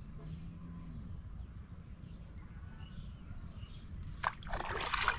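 Hooked fish splashing and thrashing at the water's surface as it is pulled up on a fishing rod: a sharp splash about four seconds in, then a second of churning water.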